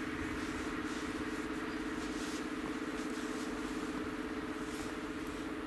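Steady hum with a fast flutter from an electric locomotive standing with its machinery running.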